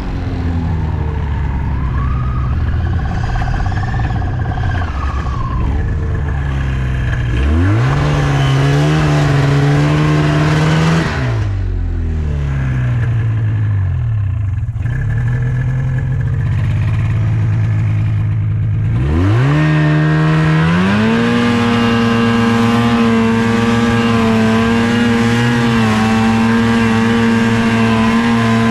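Skidoo snowmobile engine running and revving under load. It revs up about a quarter of the way in, falls back a few seconds later, then revs up again past the middle and holds a high, steady pitch.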